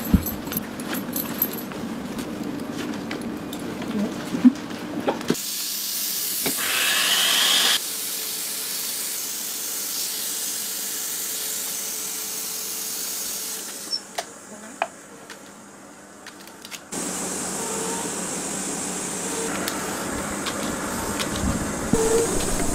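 Steady hiss of air flowing through a high-altitude full pressure suit's supply hose and helmet, its level changing in steps, louder for a couple of seconds about a quarter of the way in. Scattered clicks and knocks from handling the suit gear.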